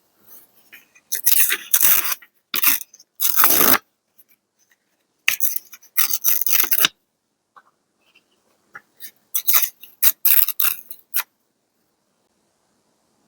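Paper being handled while decorating a journal page: short bursts of scraping and rustling in three clusters, separated by brief pauses.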